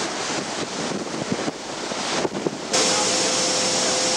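Wind buffeting the microphone over the sea rushing and breaking along the side of a moving ship's hull. About two and a half seconds in it cuts abruptly to a louder, steady machinery hum with a faint steady whine.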